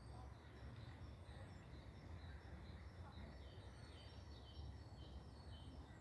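Several songbirds singing faintly in the trees, a scatter of short high chirps and trills all through, over a steady low rumble.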